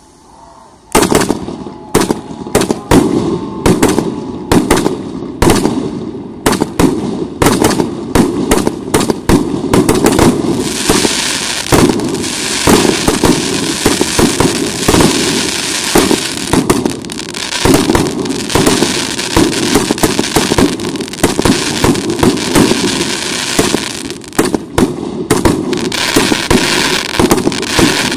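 Russkaya Pirotekhnika 'Sady Semiramidy' PC885 firework cake, a 150-shot 1.2-inch battery, firing. About a second in, a rapid string of shots and bursts starts. From about ten seconds a dense crackle fills in under the bangs, and near the end the shots are spaced out again.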